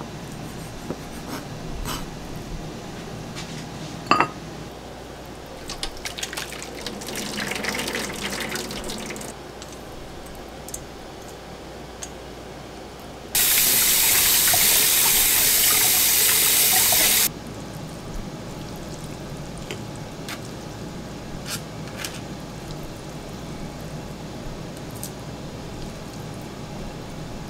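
Kitchen sink tap running for about four seconds, water pouring onto cooked noodles in a metal mesh strainer, starting about halfway in and stopping sharply. A sharp knock about four seconds in.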